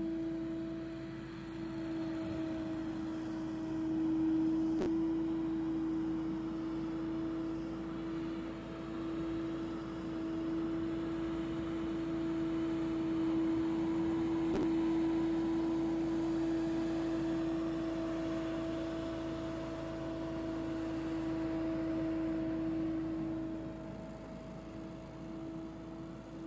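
Billy Goat P2000 stand-on leaf blower running steadily as it blows leaves: a constant engine-and-fan drone with a strong steady tone over the rush of air from the blower.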